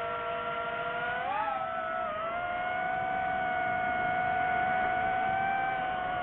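DJI FPV drone's motors and propellers whining in flight. The pitch rises briefly about a second in as the throttle comes up, then holds steady.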